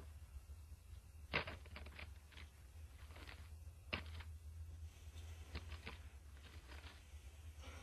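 Cloth of a burial shroud being handled and pulled back, rustling, with scattered soft taps and two sharper knocks, about one and a half and four seconds in, over a steady low hum.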